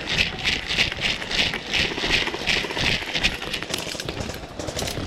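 Rhythmic rattling at a jogging pace, about two to three a second, like kit and gear shaking with each step of a running player, breaking up into scattered clicks in the last couple of seconds.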